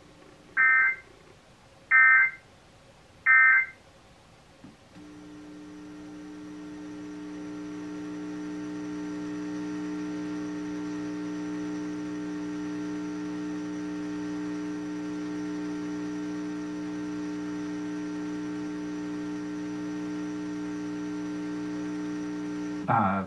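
Emergency Alert System end-of-message: three short bursts of the SAME data tone, the digital warble that closes an alert. Then a steady droning hum of several held tones fades in over a few seconds and holds.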